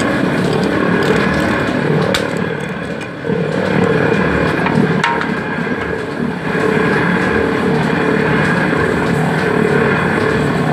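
Motorised rotary oil mill crushing coconut, its threaded metal pestle turning in the steel drum: a loud, steady mechanical drone that sags briefly twice, about three and six seconds in, with a sharp click about two seconds in.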